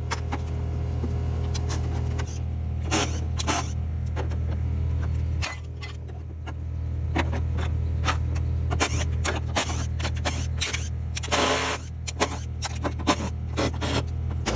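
A heavy machine's engine drones steadily while metal is torn apart, with irregular clanks, knocks and scraping from the combine harvester's body being dismantled. The engine drops off briefly around the middle and then picks back up.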